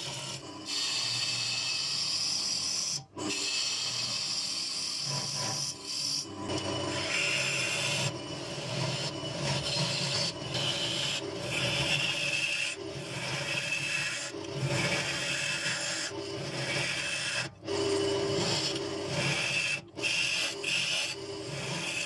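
Bowl gouge cutting the face of a spinning bird cherry blank on a wood lathe: a continuous rough scraping of shavings being peeled off, with a few brief sudden breaks.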